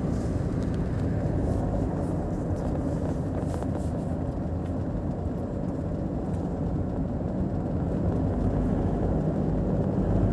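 Car driving at speed on a highway: steady tyre, wind and road rumble with a low engine hum, growing a little louder and deeper near the end.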